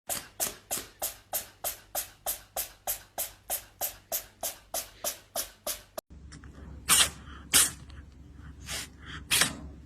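A fast, even run of short hissing puffs, about three a second, for six seconds; then, after an abrupt cut, a few separate sharp puffs, typical of a cat sneezing, over a low hum.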